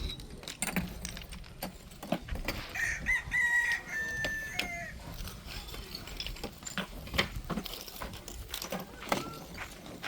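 A rooster crowing once, a drawn-out call about three seconds in that drops in pitch at the end, over scattered knocks and clicks.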